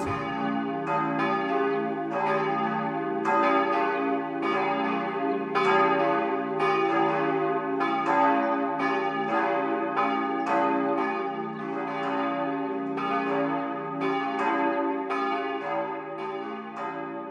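Several church bells ringing together, with strikes coming about twice a second over a lingering ringing hum. The sound fades toward the end.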